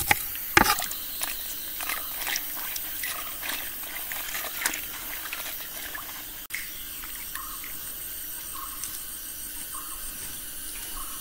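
A few knife chops on a wooden cutting board, then hands washing pieces of raw beef in a steel pot of water, with soft splashes and trickles as the meat is swished and squeezed.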